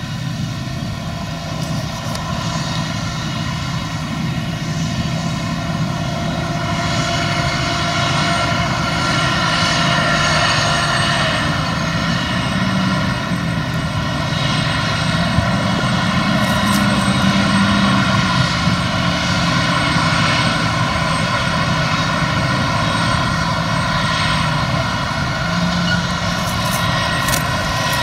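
Diesel engines of a John Deere tractor and a combine harvester running together in a steady drone while the combine unloads grain on the go into the tractor's grain cart. The drone grows louder through the first ten seconds or so, then holds.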